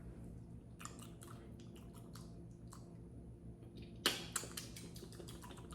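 Quiet mouth and handling sounds of someone starting to taste a frozen melon ice cream bar on a stick: scattered small clicks and crackles, with one sharp crack about four seconds in.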